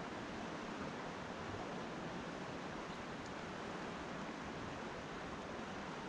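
Steady rushing of flowing river water, an even hiss that does not change.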